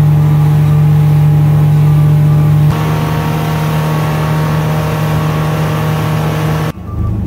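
Volvo Penta four-cylinder inboard/outboard engine of a 20-foot Bayliner running steadily at high cruising speed, around 25 mph, over a constant rushing hiss. The pitch steps slightly at a cut about two and a half seconds in, and the engine sound drops away near the end.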